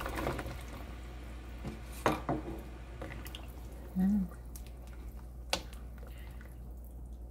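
Rice cakes dropped into a pot of thick tteokbokki sauce, then stirred with a spatula: wet splats, liquid sloshing and a few knocks against the pot. A brief low tone comes about four seconds in.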